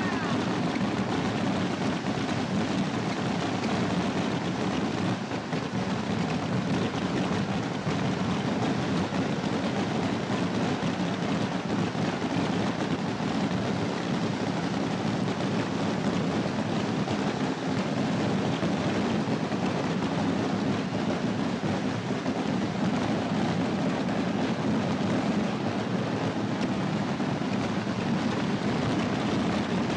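Massed voladores (Asturian stick rockets) firing in an unbroken barrage. Countless launches and bangs blur into one steady, dense crackling roar that never lets up.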